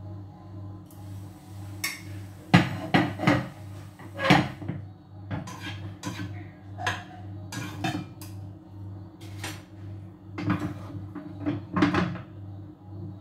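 Dishes, pots and utensils clattering in irregular knocks and clinks, with two busier bursts, over a steady low hum.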